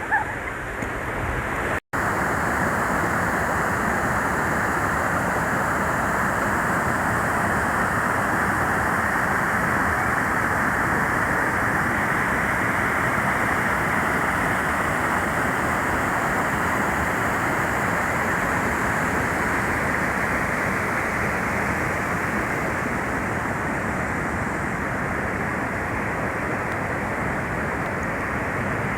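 Steady rush of water from a waterfall or fast stream, running evenly throughout, with a brief break about two seconds in.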